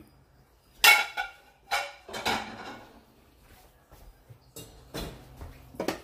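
Ceramic plates clinking and knocking as they are handled and set down. A sharp, ringing clink about a second in is the loudest, followed by a couple of duller knocks and a few light clinks near the end.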